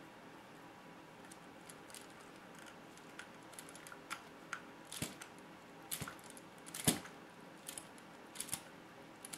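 Small scattered clicks and taps as a wheel nut is run onto the rear hub of a 1/14 Tamiya RC semi-truck chassis and tightened. The clicks come more often after a few seconds, and the loudest is about seven seconds in.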